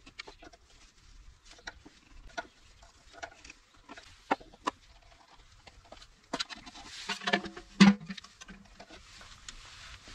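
Small clicks and taps of hands and pliers working a fuel hose and its clip under a motorcycle's fuel tap. Denser handling noise runs from about six to eight seconds in and ends in one sharp knock, the loudest sound.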